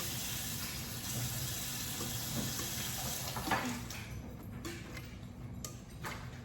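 Kitchen tap running into the sink, a steady hiss of water that stops about four seconds in as it is turned off, followed by a few light clicks.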